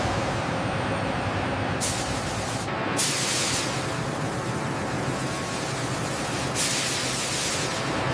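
Steady hissing spray over a constant low rumble, with fresh, sharper bursts of hiss starting about 2, 3 and 6.5 seconds in.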